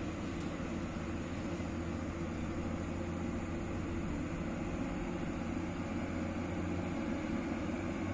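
Diesel truck engine running in a steady low drone as the truck comes up a gravel road, growing slightly louder as it approaches.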